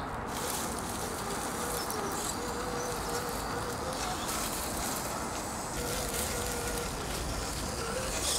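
Axial Honcho RC crawler's brushed 35-turn electric motor and geared drivetrain whining at crawling speed, a thin whine that comes and goes and wavers in pitch with the throttle.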